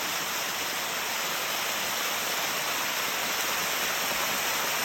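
Steady rush of falling water from a waterfall, an even hiss that does not change.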